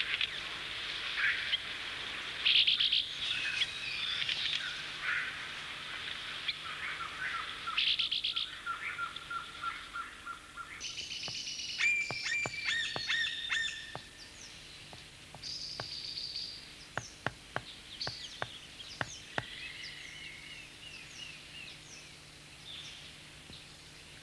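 Several forest birds calling at once: trills, chirps and whistled notes overlapping. A run of sharp clicks comes from about the middle of the stretch, after which the calls grow quieter and sparser.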